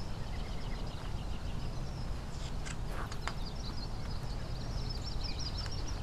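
Small birds singing in the background, a steady run of quick high chirps and trills, over a low steady hum. About halfway through, a few short paper rustles as a book page is turned.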